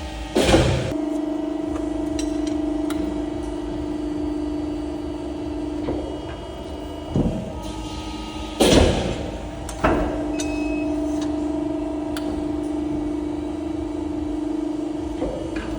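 A CNC sheet-metal machine running with a steady, humming drone, broken by two loud clanks about eight seconds apart and a few lighter knocks.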